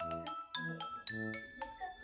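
Background music: a light tune of short ringing high notes over deeper notes, about four notes a second with a steady beat.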